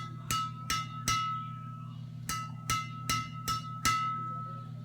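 String bed of a Yonex Arcsaber Z Slash badminton racket, strung with Yonex BG80 at 31 lbs, being tapped: about nine sharp, crisp pings, three and then, after a short pause, five more at roughly two or three a second, each ringing briefly at the same high pitch. The high, bright ping is the sign of a tight, high-tension string job.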